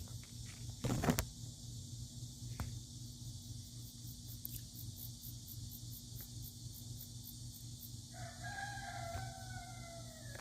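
A rooster crows once, about eight seconds in: one long call that falls slightly in pitch at the end. Under it runs a steady, high chorus of cicadas. A sharp knock about a second in is the loudest moment.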